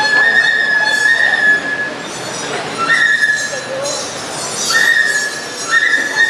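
Balinese gamelan music for a Barong dance: a high held melody line, each long note stepping slightly up as it begins, over the ensemble playing beneath.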